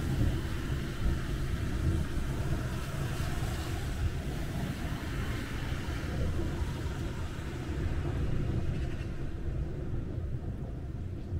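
Thunderstorm: a steady low rumble with a hiss of rain, the hiss thinning out near the end.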